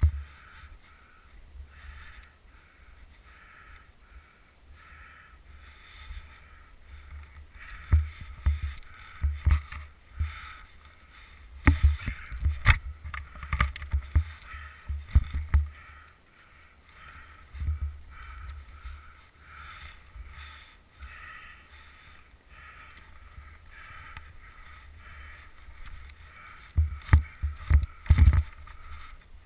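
Clusters of muffled thumps and crunches, likely a camera being carried through deep snow and knocking about, with a faint fluttering hiss between them.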